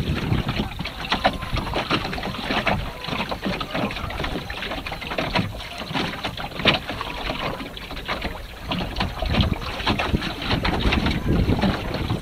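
Small wooden open sailing boat under way in a breeze: water splashing and slapping irregularly against the hull, with wind buffeting the microphone as a low rumble.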